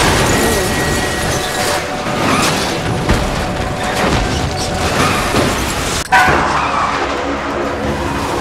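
Action-film car-chase soundtrack: a music score mixed with vehicle and crash effects. A brief drop-out about six seconds in is followed by a sudden loud crash.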